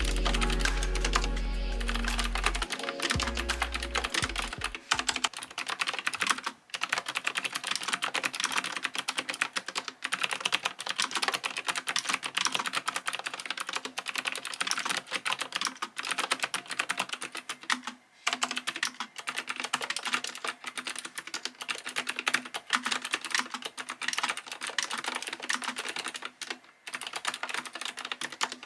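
Fast continuous typing on an AZIO Retro Classic keyboard with clicky blue switches: a dense run of key clicks with short breaks about a third of the way in, about halfway, and near the end. Background music plays under the typing and fades out in the first few seconds.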